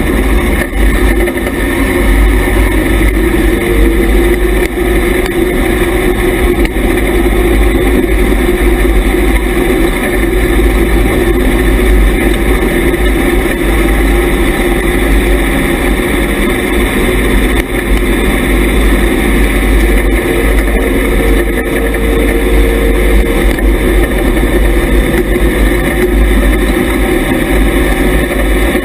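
IMCA Hobby Stock dirt-track race car's engine running loud and steady at speed, heard from inside the car, with a heavy low rumble.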